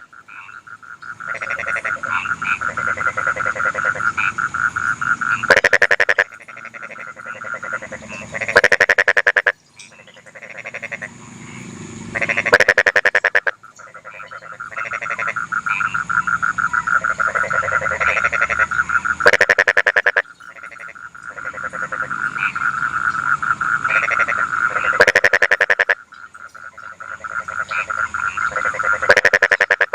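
Rice-paddy frogs croaking in fast pulsed trains, bout after bout, with a louder nearby frog breaking in with a short burst of croaks every few seconds.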